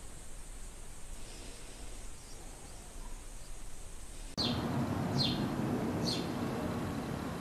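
Faint hiss, then from about four seconds in, outdoor background noise with three short, sharp, descending chirps about 0.7 s apart from house sparrows: a fledgling begging as an adult feeds it.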